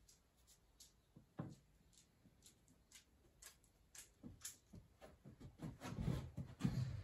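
Faint scattered clicks and rustles of handling, with a soft thump about a second and a half in and a louder low rustling near the end.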